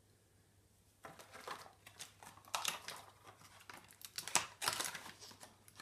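Small stationery packaging being handled in the hands, crinkling and clicking in an irregular run that starts about a second in.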